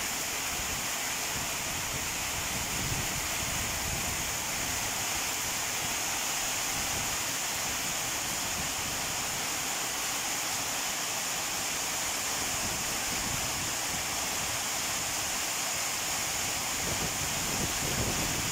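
Heavy monsoon rain pouring down steadily in a constant hiss of water on roads and roofs.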